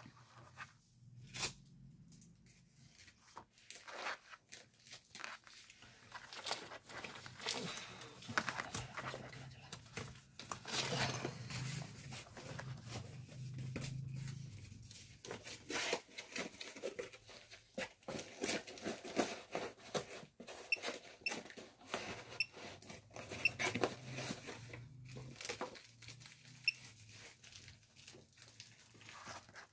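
Hands handling a handheld signal calibrator, its zip case and test leads: irregular clicks, taps and rustling as the items are picked up, turned over and moved about.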